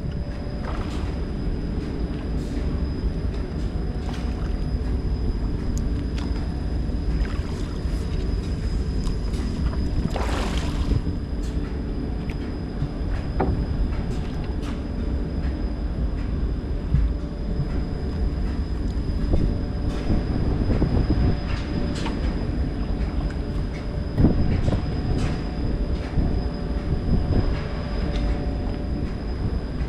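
Steady low mechanical rumble with a constant high, thin whine over it, broken by scattered clicks and knocks and a short hiss about ten seconds in.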